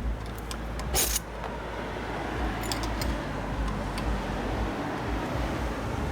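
A short metallic clatter about a second in, then a few light clinks, over a steady low hum.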